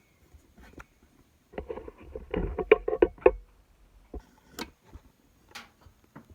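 Strands of small stone beads clicking and rattling against each other and the work surface as they are handled and laid out. There is a quick run of clicks about a second and a half in, then a few single clicks.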